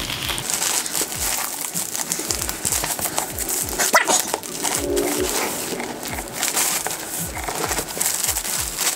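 Crinkling and rustling of plastic shrink-wrap film being cut and pulled off a laptop box, with scattered clicks and a sharper click about four seconds in.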